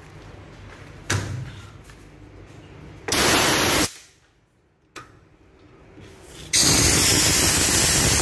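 Air hissing through the brass valve of a vacuum forming machine in two bursts: a short one under a second long, then a longer one of about two seconds, each cut off sharply. A single knock comes about a second in.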